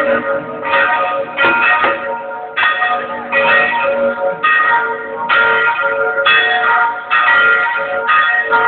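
Church bells ringing continuously, struck about once a second, the strikes overlapping into a sustained ringing of many tones.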